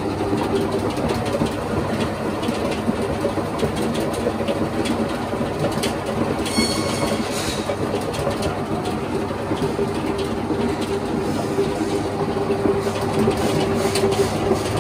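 SANCN RH-1/SHH-IVd automatic paint shaker running, shaking a clamped can of paint with a steady, loud mechanical rattle and clatter. The machine is mixing tinting colours into white base paint.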